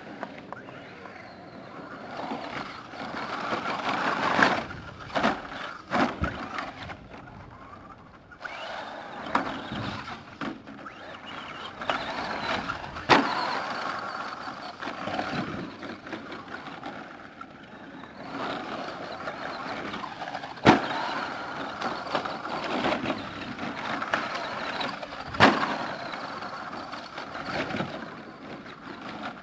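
Electric RC short course truck with a brushed Kyosho Le Mans 240ST motor on a 2S LiPo, its motor and drivetrain whining in repeated bursts as it speeds up and slows down over a dirt track. Several sharp knocks come as the truck lands jumps and tumbles.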